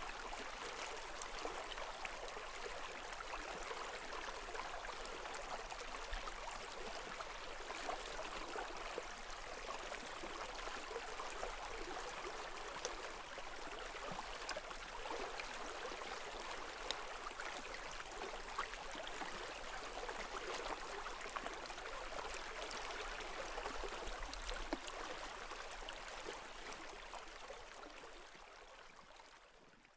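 Running water, a steady rush with fine splashy ticks, like a stream over stones; it fades out over the last few seconds.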